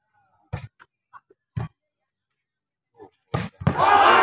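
A volleyball being struck, three sharp thuds about a second apart in a rally. Near the end a crowd bursts into loud shouting and cheering.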